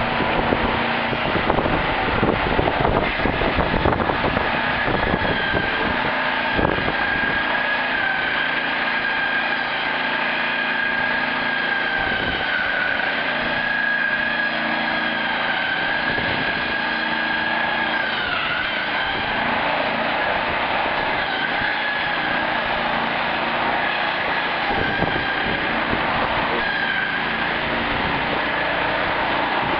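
Heavy demolition machinery running steadily with a high whine that sags briefly in pitch about 18 seconds in. Sharp knocks and cracks come through during the first several seconds.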